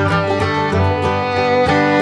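Background music: a lively fiddle-and-guitar tune in a bluegrass or country style, with notes changing several times a second.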